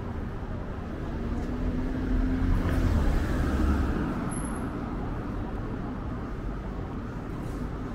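Street traffic with a motor vehicle passing close by: its engine and tyre noise swells about two seconds in and fades away by about four and a half seconds, over a steady hum of city traffic.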